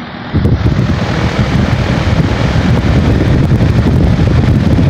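Loud wind buffeting on the microphone from the airflow of a running 3-ton Ruud heat pump's outdoor unit. It starts suddenly about a third of a second in and stays loud and rough, heaviest in the low end.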